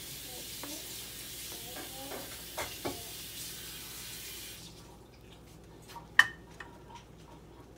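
Soy braising liquid with quail eggs hissing in a frying pan while a wooden spoon stirs them, knocking against the eggs and pan a few times. The hiss stops about five seconds in, and one sharp knock of the spoon on the pan follows about a second later.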